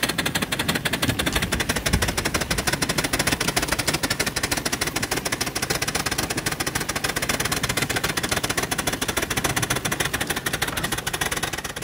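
Miniature live-steam locomotive working hard to get moving: a fast, even chatter of exhaust beats over a steady hiss of steam.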